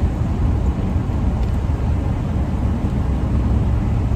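Steady low road and engine rumble of a vehicle being driven, heard from inside the cab.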